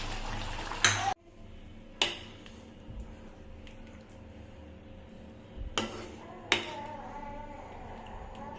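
Metal utensils clinking against a cooking pot or dishes: a few sharp knocks with a short ring, one about a second in, one at two seconds, and two close together between six and seven seconds.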